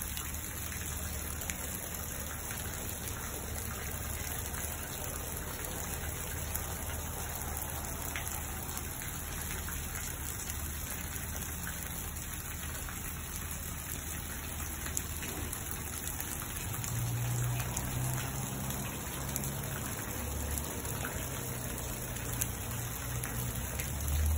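Steady rain falling on garden shrubs and lawn, an even hiss with the patter of individual drops. A low rumble joins in about two-thirds of the way through.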